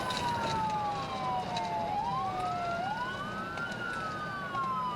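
Two police sirens wailing out of step. Each rises quickly in pitch, then slides slowly back down, over the steady noise of a car moving on the road.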